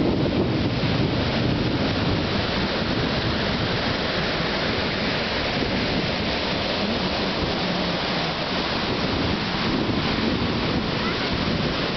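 Ocean surf breaking and washing up over the sand in a steady rush.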